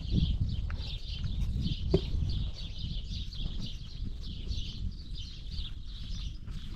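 Rural outdoor ambience: birds chirping over a low, uneven rumble, with a single sharp knock about two seconds in.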